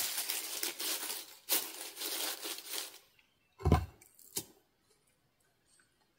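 Dry leaves crumpled and rustled by hand as tinder for a small fire, for about three seconds. Then a dull thump of a flat stone set against the rocks of the fire ring, with a lighter knock just after.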